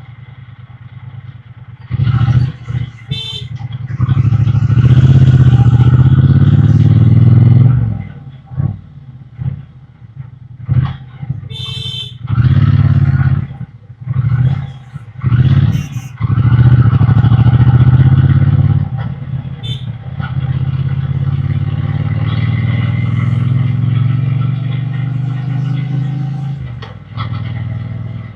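Triumph Bonneville T120's parallel-twin engine heard through its exhaust from the riding position: the throttle is opened in repeated bursts and closed between them, then held for a steadier stretch before easing off near the end. A few short sharp sounds cut in about three, twelve and sixteen seconds in.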